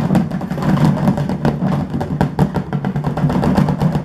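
Spray paint cans clattering and knocking against each other and the walls of a plastic storage tub as the tub is tipped and shaken, a fast continuous rattle that stops near the end.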